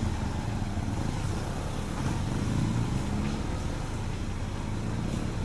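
Vehicle engine idling, a steady low rumble.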